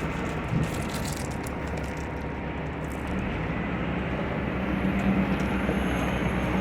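Heavy diesel equipment running steadily, its engine note rising and getting stronger about halfway through, with a few light clanks about a second in.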